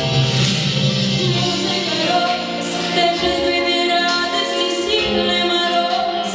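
A girl singing a song solo over instrumental accompaniment, with long held notes.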